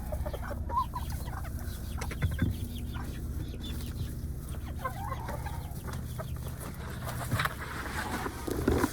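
Chickens clucking off and on, over a steady low hum.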